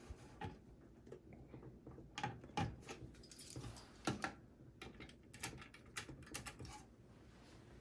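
Faint, irregular small clicks and taps of hands working a cable and connector: the CPU fan's cable being plugged back into its motherboard header.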